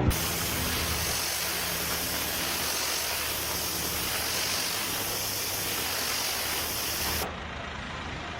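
A steady hiss of spray or escaping pressure, starting suddenly and cutting off about seven seconds in.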